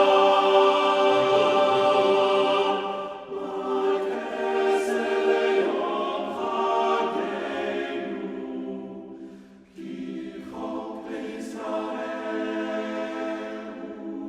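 A choir singing slow held chords, the notes changing every few seconds. It dips almost to nothing just before ten seconds in, then goes on more quietly.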